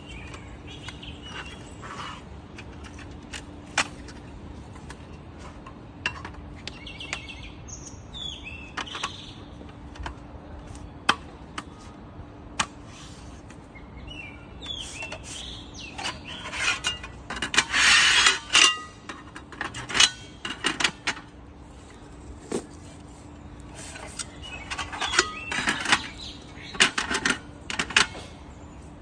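Parts of an aluminium-alloy camping table being handled and fitted together: scattered metallic clicks and knocks, with denser bursts of rattling and clattering about halfway through and again near the end. Birds chirp now and then.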